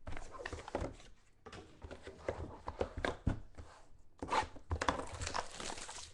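A trading card box being handled and opened by hand: irregular taps and clicks with cardboard and wrapper scraping and rustling, thickest in a longer stretch of rustling about four seconds in.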